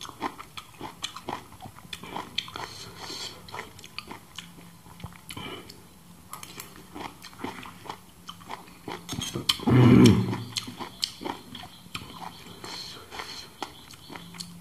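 Close-miked eating: chewing and mouth smacking, with many short clicks as a metal spoon scrapes rice on a banana leaf. About ten seconds in there is a loud, short vocal sound from the eater.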